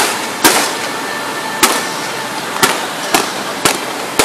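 Fireworks display: about seven sharp bangs from shells and comets launching, a half second to a second apart, over a steady hiss.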